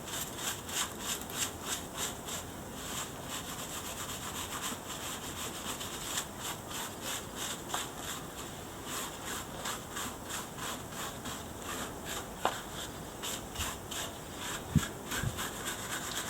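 Bristle brush scrubbing caked dirt out of the bead edge of a spare tyre, in quick rhythmic strokes about three a second, with a short knock near the end.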